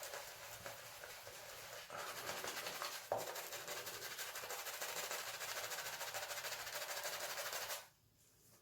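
Shaving brush whipping shaving-soap lather with fast, even strokes, a wet swishing that stops abruptly near the end. One sharp click about three seconds in is the loudest moment.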